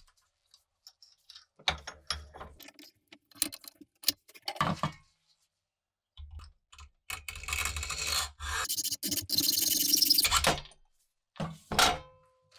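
Hand-tool scraping and rubbing on the parts of a 1950s toy cap gun, in short irregular spells broken by light clicks and taps. The longest, steadiest stretch of scraping runs from about six to ten seconds in, and one brief burst comes near the end.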